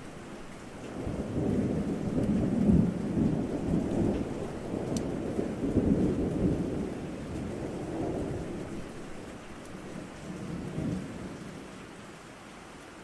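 Thunder rolling over steady rain. A long, low rumble swells about a second in and dies away over several seconds, and a shorter roll comes near the end.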